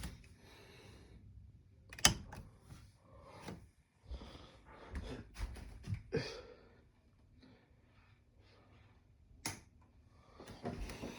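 Scattered knocks, clicks and rustling of handling, the loudest a sharp knock about two seconds in and another about three-quarters of the way through.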